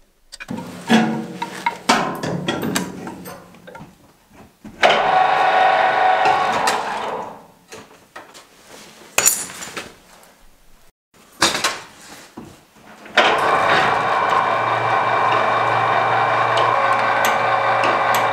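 Clicks and clatter of hand tools working on an electric motor, with a short burst of louder noise partway through. About two-thirds of the way in, an electric gear motor starts driving the belt conveyor's roller and keeps running with a steady hum.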